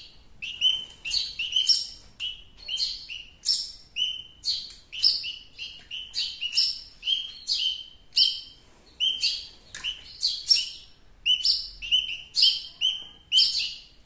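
Hungry nestling spiderhunters begging for food: a rapid, unbroken run of short shrill chirps, two or three a second.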